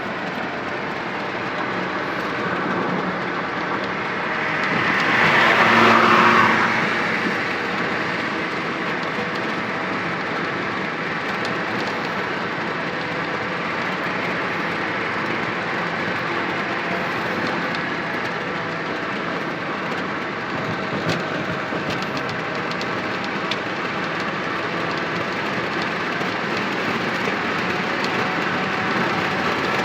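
Loaded truck driving on a highway: steady engine and road noise, swelling louder for a couple of seconds about six seconds in.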